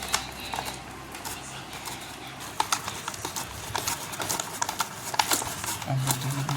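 Irregular clicks and knocks of kitchen utensils during momo preparation, several a second at times, uneven in spacing.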